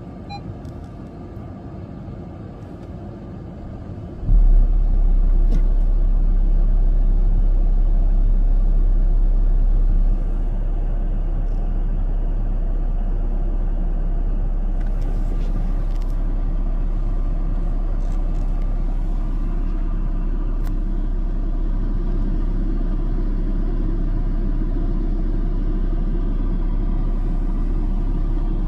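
A steady low rumble that jumps suddenly louder about four seconds in and eases a little around ten seconds, with a few faint clicks.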